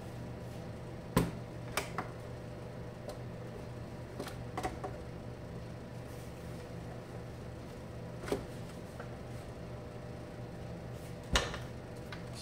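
Scattered sharp clicks and knocks of plastic casing parts being handled as the hinged front panel of a Zimmer ATS 2000 tourniquet unit is swung open and closed, over a steady low hum. The loudest knocks come about a second in and near the end.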